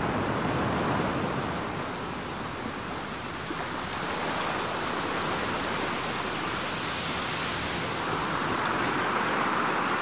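Wind and distant ocean surf on an exposed sea cliff: a steady rushing noise that swells and eases slowly.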